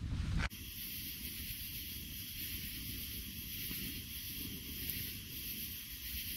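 Wood campfire burning with a steady hiss and only faint crackles. Half a second in, a louder low rumble cuts off abruptly.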